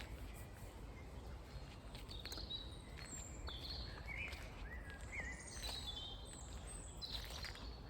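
Several songbirds chirping and singing in short, scattered phrases, over a steady low rumble.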